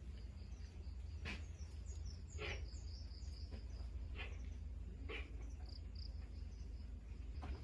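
Quiet background with birds chirping faintly and a steady low hum, broken by a few faint clicks at irregular moments.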